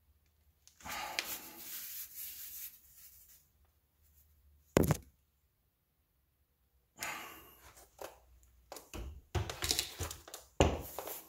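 Hands-on work under a car around a just-removed CV axle: a rustling of movement, one sharp thunk about five seconds in, then a run of knocks, clatters and scrapes.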